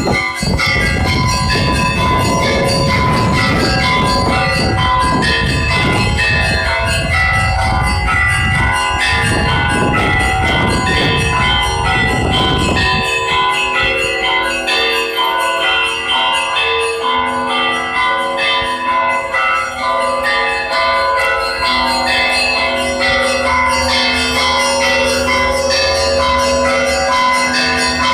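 Russian Orthodox church bells ringing a continuous peal, many bells of different pitches struck in overlapping patterns. A loud low rumble lies under the bells for the first half and stops about halfway through, leaving the deeper bell tones clear.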